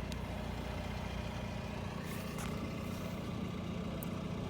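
Steady low mechanical hum like an engine idling, with a few faint light clicks.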